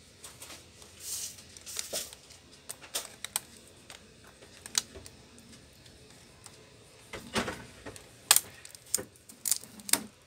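Scattered small clicks, taps and scrapes of hands handling parts inside an opened Lenovo IdeaPad Y460 laptop, with a denser run of louder clicks in the second half.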